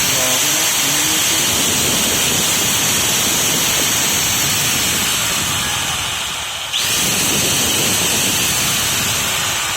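A new INGCO corded electric power tool running with no load, a steady loud motor whine. Past the middle it slows briefly and then spins back up with a rising whine.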